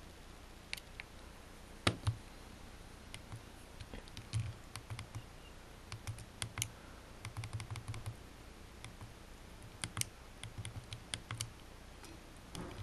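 Nokia N95 keypad and navigation keys clicking as they are pressed, in quick runs of clicks with short pauses between; two louder clicks about two seconds in.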